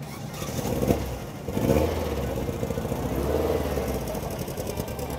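Air-cooled 2180cc Volkswagen engine of a shortened VW bus running at low speed, its steady low note louder from about a second and a half in.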